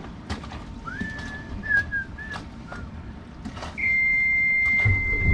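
Yanmar engine panel alarm buzzer sounding one steady high-pitched tone that starts about four seconds in, with the marine diesel engine starting as a low steady hum about a second later. Before it, a brief wavering whistle-like note.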